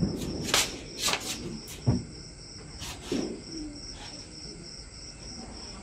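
Crickets chirring steadily, broken in the first three seconds by several short, hissy or clattering noises and a low knock just before two seconds in.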